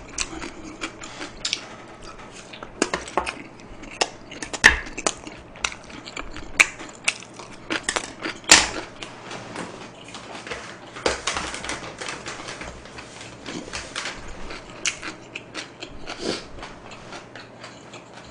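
Chopsticks and tableware clinking in scattered light clicks and taps, with a few sharper clacks about four and a half, six and a half and eight and a half seconds in.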